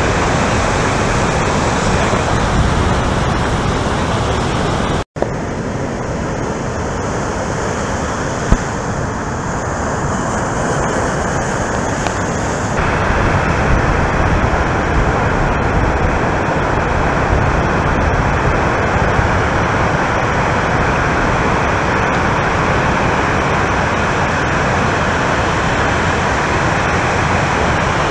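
Big surf breaking, a steady wash of noise, with a brief gap of silence about five seconds in and a single sharp click a few seconds later.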